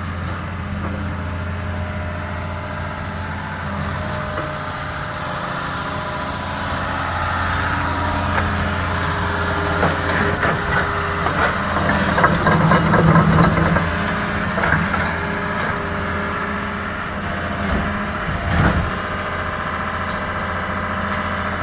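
Heavy demolition machine's engine running steadily. From about ten to fourteen seconds in, a stretch of clattering and cracking, the loudest part, rises over the engine.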